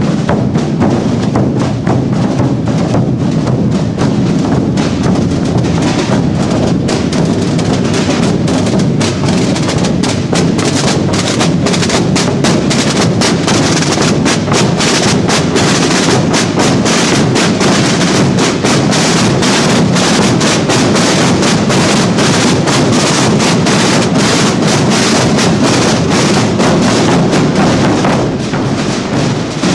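A corps of Holy Week processional drums beaten together by many drummers, a fast, steady rhythm of sharp stick strokes.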